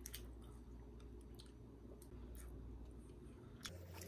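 Faint eating sounds: chewing and a few soft, scattered clicks, over a low steady hum.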